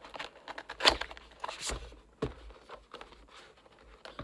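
Handling noises: a sharp knock about a second in, then a few scattered knocks and light rubbing as objects, a smoothie bottle and a cardboard product box, are moved about.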